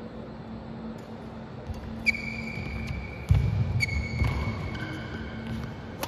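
Badminton rally: several sharp racket hits on the shuttlecock, heavy thudding footwork on the court around the middle, and high squealing tones after some of the hits.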